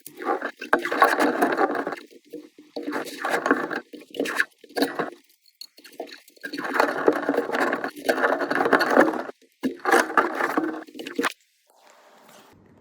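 Repeated scraping in irregular stretches of one to two seconds with short gaps, stopping about eleven seconds in.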